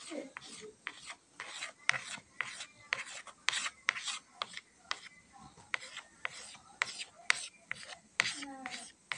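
White chalk scratching across a small chalkboard in quick, repeated strokes as long lines of hair are drawn: short rasps at roughly two a second, uneven in spacing and strength.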